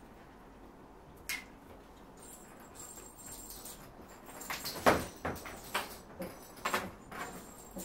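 Cats moving and playing on the floor: scattered knocks and scuffs. One sharp click comes early, then a cluster of knocks about halfway through, with one loud knock among them.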